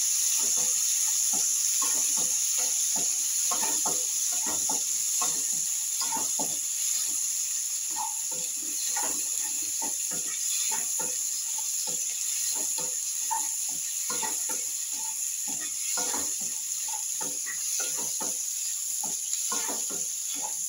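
Sliced onions and capsicum frying in oil in a nonstick kadai, stirred with a wooden spatula: a steady sizzle under repeated, irregular scrapes and taps of the spatula against the pan, about two a second.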